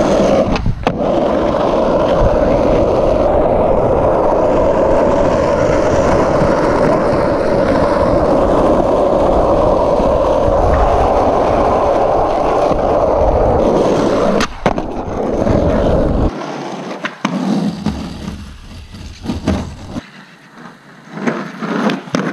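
Skateboard wheels rolling on an asphalt road, a steady loud rumble for about the first fourteen seconds. After that the rolling is quieter and broken up, with several sharp clacks of the board near the end.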